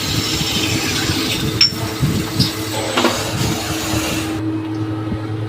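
CNC machine running with a steady hum, with a couple of sharp clicks about a second and a half and three seconds in; the higher hiss drops away about four seconds in.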